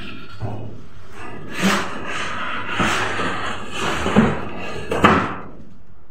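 Cardboard carton and foam packing being handled and pulled apart: rustling scrapes with several sharp knocks.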